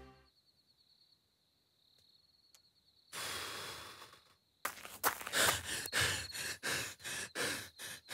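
Crickets trilling faintly, with a long breathy exhale about three seconds in, then a run of footsteps on dirt from about five seconds in, roughly three steps a second.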